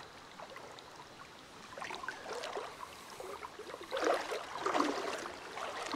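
Shallow creek water gurgling and splashing, faint at first and coming in uneven splashes from about two seconds in.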